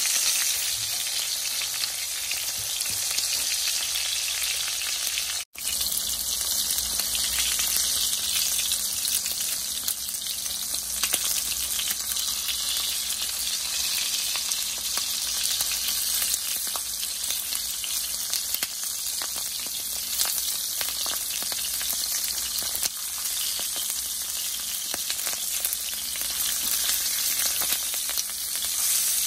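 Smoked sausages sizzling and crackling in hot oil in a skillet as they are turned with tongs. The sound cuts out for an instant about five seconds in.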